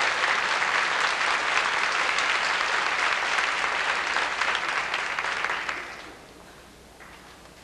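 Audience applauding, which dies away about six seconds in.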